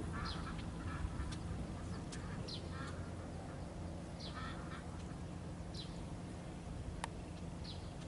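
Kubota L4508's four-cylinder diesel engine running steadily at a distance as the tractor tills the wet paddy on cage wheels. Over it come short high calls every second or two, and one sharp click about seven seconds in.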